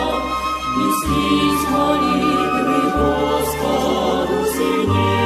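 Choir singing a hymn in Russian, held chords with the lowest note changing every second or two.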